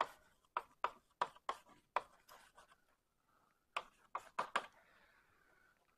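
Writing on a lecture board: a quick run of about six short taps and strokes in the first two seconds, a pause, then four more about four seconds in.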